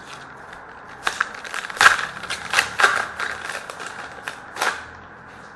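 Foil trading-card pack wrapper being torn open and crinkled: a run of irregular sharp crackles lasting about four seconds, starting about a second in.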